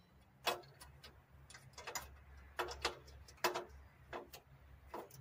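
About a dozen sharp, irregular clicks and clinks of hand tools and mower parts being handled during repair work.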